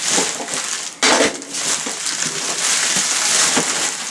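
Plastic mailer bag and bubble wrap crinkling and rustling as a bubble-wrapped box is pulled out of the torn-open bag, with a sharper, louder crackle about a second in.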